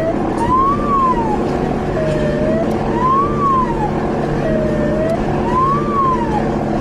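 Police car siren cycling about every two and a half seconds, each cycle a tone rising and falling followed by a short lower tone, over steady engine and road noise.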